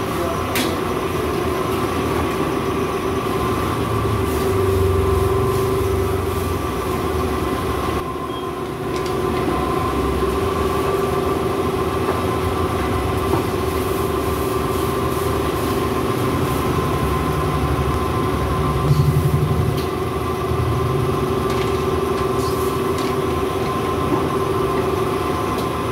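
Steady roar of gas wok burners with food frying in oil in the woks, and a few clinks of metal ladles.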